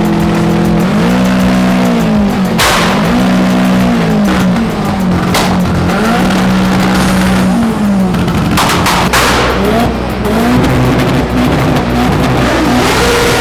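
Car engine revving over and over: each rev rises, holds briefly at high revs, then falls back, about every two seconds. A few short, sharp noisy blasts cut in, about two and a half seconds in, around five seconds in, and around nine seconds in.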